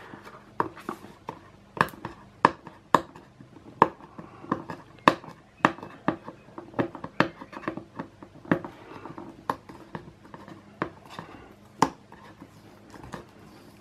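Fingernails picking and scratching at a tape seal on a cardboard box: irregular sharp clicks and taps, about two a second.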